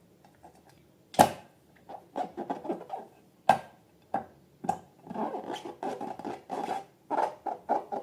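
Slime being squeezed and worked by hand: runs of quick, wet, crackling squelches, broken three times by a sharp snap.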